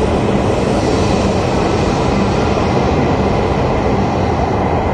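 E5-series Shinkansen trains moving past the platform edge, a steady loud rumble and rush of wheels on rail.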